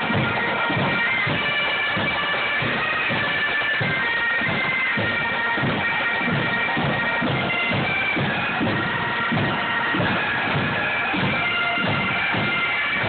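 A pipe band's Highland bagpipes playing a tune together over their steady drones, with a regular low beat underneath.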